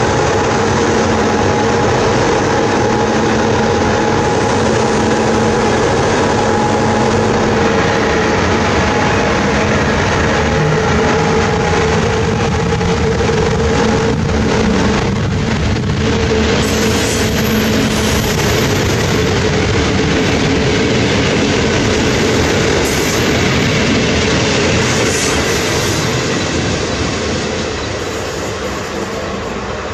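A train running through the halt close by: a loud, steady rumble of wheels on rail with a steady hum over it, easing off slightly over the last few seconds.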